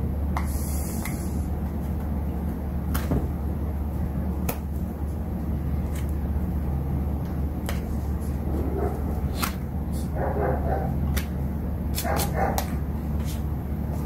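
Scattered light clicks and taps of a plastic light housing and small screws being handled, over a steady low hum. In the second half a dog barks in short bursts in the background.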